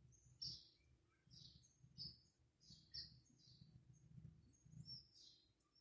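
Faint bird chirping: short high-pitched chirps repeating roughly every half second to a second, over a faint low hum.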